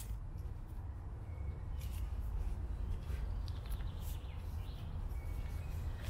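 A pocket knife shaving a thin stick of wood for fire kindling: a few faint, short scraping strokes over a steady low background rumble.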